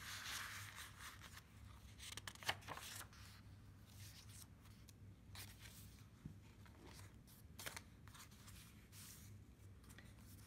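Faint rustling of the paper pages of a handmade journal as they are handled and turned, with several short crisp paper sounds spread through it over a steady low hum.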